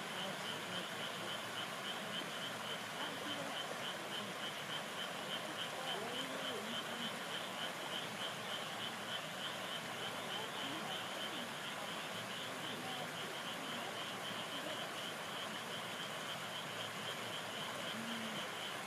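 Frogs calling over the steady flow of a small stream: a few short low croaks now and then, and a high, rapidly pulsing trill throughout.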